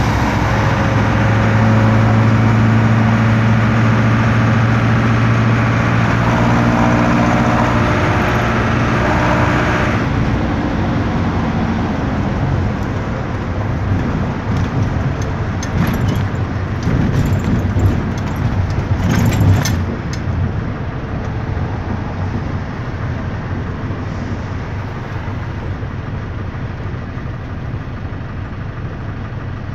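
Otokar M-2000 minibus's air-cooled Deutz F4L912 four-cylinder diesel heard from inside the cab, pulling steadily under load for about ten seconds and then easing off. Cabin fittings give a burst of rattling about halfway through, and the engine grows quieter near the end as the bus slows for a red light.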